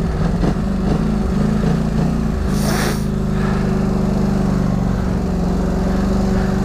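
Polaris Scrambler XP 1000 ATV's twin-cylinder engine running at steady revs as the quad rolls slowly over rough ground. A brief hiss comes a little under three seconds in.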